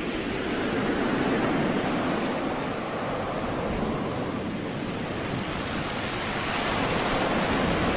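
Heavy storm seas breaking and washing around a ship's bow: a steady rushing of waves and spray, with wind.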